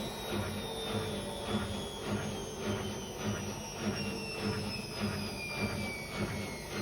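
Hotpoint Aquarius WF541 washing machine drum spinning, with a motor whine that slowly falls in pitch over a regular rhythmic pulse a few times a second.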